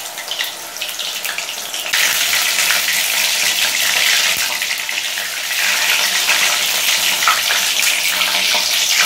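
Batter-coated water lily stem fritters deep-frying in hot refined oil in an aluminium wok: a steady sizzle that grows louder about two seconds in.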